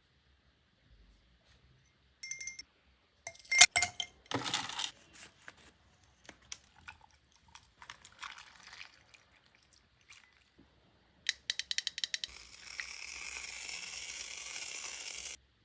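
Containers and household items being handled and set down: light clinks, taps and a couple of louder knocks, then a quick run of clicks followed by a steady hiss lasting about three seconds that cuts off suddenly.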